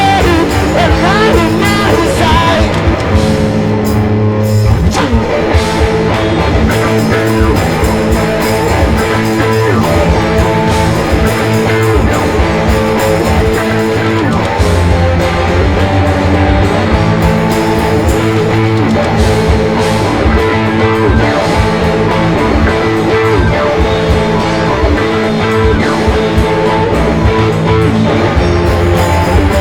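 Loud live rock music: a band playing guitars over bass and a drum kit.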